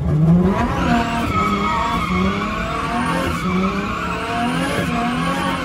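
Drift car's engine revving up and down about once a second, with the tyres skidding through a sustained slide.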